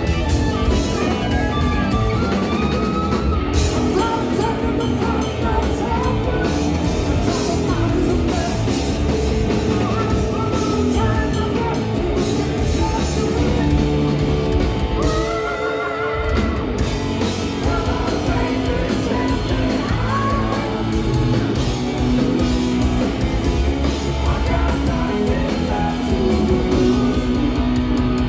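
Live rock band playing at full volume: electric guitar, electric bass and drum kit, with a sung vocal over them.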